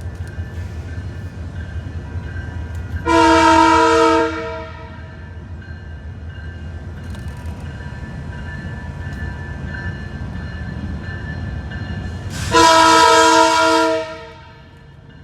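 Diesel locomotive horn sounding two chord blasts, each about a second and a half long and about nine seconds apart, over the steady low rumble of a moving train.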